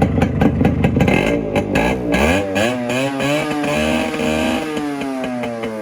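Yamaha RX100's two-stroke single-cylinder engine running with a rapid low popping from the exhaust, then revved: the pitch climbs about two seconds in, holds, and falls away slowly near the end.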